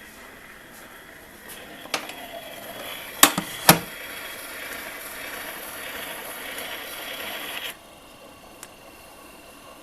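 Steel needle of a wind-up Victor Victrola phonograph hissing and scratching in the groove of a shellac 78 record after the music has ended, with a few clicks and two loud knocks a little past three seconds in. The scratching cuts off suddenly near the end.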